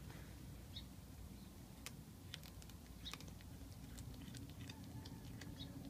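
Tortoiseshell cat chewing a rat, faint irregular crunches and clicks as the rat's bones are crushed.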